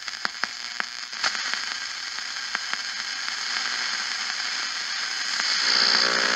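Hiss and static from a GE model 62 vacuum-tube AM radio's speaker as the tuning dial is turned between stations, with sharp crackles in the first second or so. Near the end a station's broadcast starts to come through.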